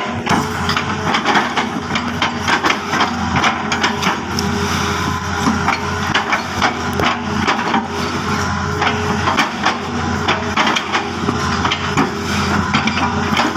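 Hitachi 210F excavator's diesel engine running under load while its bucket crushes and chops oil palm trunks. Frequent short cracks and knocks of splitting fibrous palm wood run over the steady engine hum.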